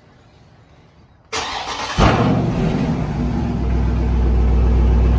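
2020 Dodge Charger Scat Pack's 392 (6.4-litre) HEMI V8 cold-started: the starter cranks briefly about a second in, then the engine catches with a loud burst and settles into a deep, steady idle.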